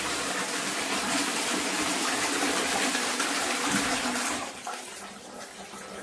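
Toilet flushing: a steady rush of water through the bowl that falls away about four and a half seconds in, leaving a quieter trickle.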